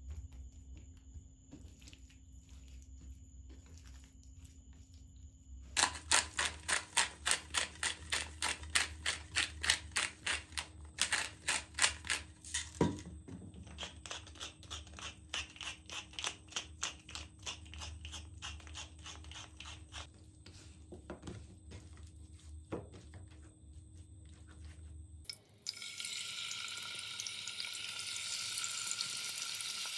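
A pepper mill grinding in quick strokes, about three a second, then more softly with a few sharp knocks. About 25 seconds in, chicken thighs go into a hot cast-iron skillet and start sizzling steadily.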